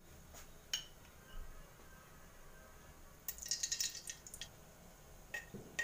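A spoon tapping and scraping in a steel pot as spoonfuls of ghee are dropped into the oil: a few soft clicks, then a cluster of scrapes and clicks a little past the middle.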